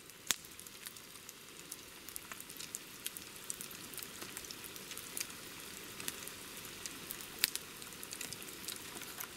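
Potatoes frying in a foil tray of goose fat on campfire embers: a steady sizzle with scattered sharp pops and crackles, the loudest about a third of a second in and again about seven and a half seconds in.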